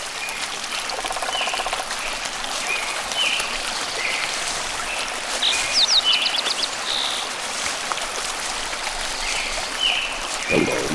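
Flowing stream water rushing steadily, with birds chirping short calls about once a second and a quick run of high notes near the middle.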